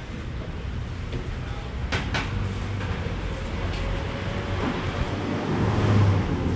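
Steady low mechanical rumble, swelling a little near the end, with two sharp clicks about two seconds in.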